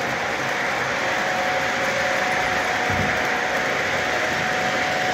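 Toy train's cars rolling steadily around a floor track close by, a continuous rattling whir of wheels on rail, with a steady whine that fades out about a second and a half in as the train draws past.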